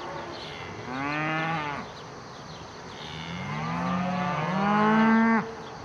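Cows mooing: a short moo about a second in, then a longer, louder one starting about three seconds in that cuts off sharply near the end.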